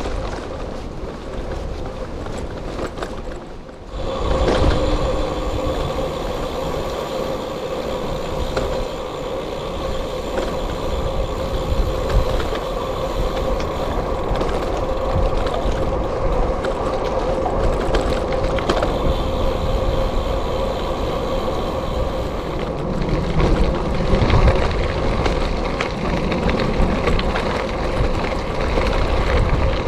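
Steady rolling noise of a gravel bike being ridden along a trail, with wind rumbling on the camera microphone; the sound drops briefly and picks up again a few seconds in.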